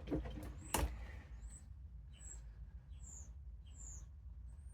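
A sharp click just under a second in, then a small bird chirping, short high notes sliding down and repeating about every 0.8 s.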